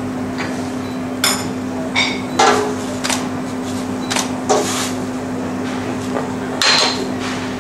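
Metal spoon clinking against a ceramic plate while chunks of brown slab sugar are pushed off it into a stainless steel pot of water: about seven sharp clinks and knocks, some ringing briefly, spread over several seconds. A steady low hum runs under them.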